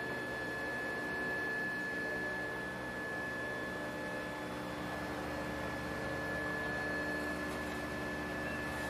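Steady machine hum with a constant high-pitched whine over a low drone, unchanging throughout, with no knocks or impacts.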